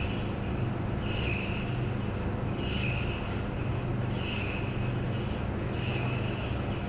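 Clothes dryer running: a steady low hum with a higher swish that comes back about every second and a half, and faint scattered ticks.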